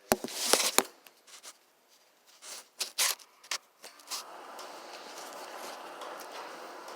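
Sharp clicks, rubs and rustles of handling close to the microphone. About four seconds in, a steady rushing noise starts and holds.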